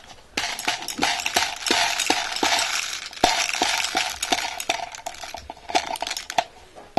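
Airsoft BBs poured from a plastic bottle into the box magazine of a Stoner airsoft machine gun: a dense rattling clatter of many small plastic pellets with scattered sharper clicks. It starts about half a second in and dies away near the end.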